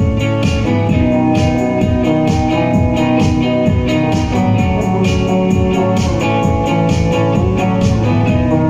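A band playing an instrumental passage at rehearsal: guitar notes over a steady low beat, loud throughout.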